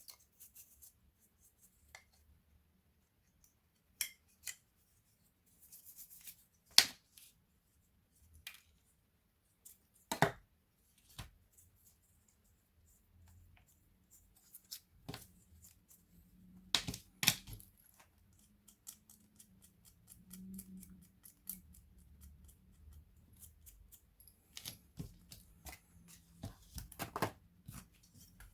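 Scattered sharp clicks and light knocks, irregular and one at a time, of small plastic and metal parts and tools being handled while a laptop is taken apart.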